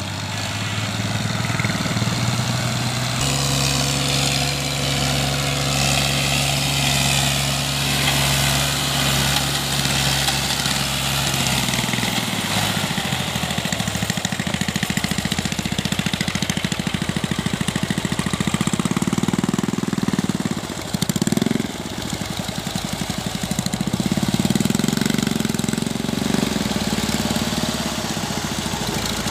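Fiat 480 tractor's three-cylinder diesel engine running under a heavy load, towing an overloaded trailer of straw. The engine note is steady for the first dozen seconds, then shifts in pitch, with a brief drop in loudness about two-thirds of the way through.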